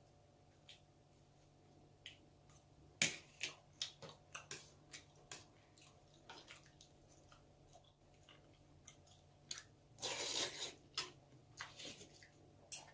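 Close-miked eating sounds: scattered soft clicks of utensils and wet chewing, with a longer wet burst lasting about a second near the end.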